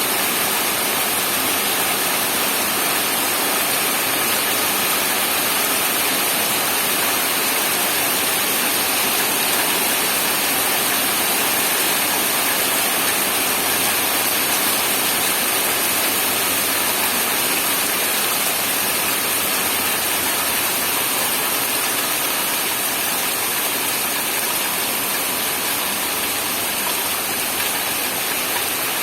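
Steady rain falling, a dense, even hiss that holds at one level without breaks.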